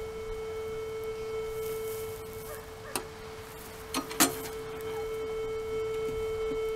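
Viking VK40 metal detector in non-motion mode giving a steady, unbroken tone: the continuous signal it gives for a large metal object, here a box held behind a stone wall. A few light knocks come about three and four seconds in.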